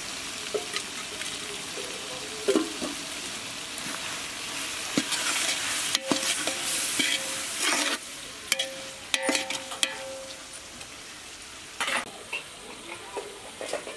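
Chicken masala cooking and sizzling in an aluminium pot while a metal ladle stirs it, scraping and knocking against the pot, most busily in the middle of the stretch.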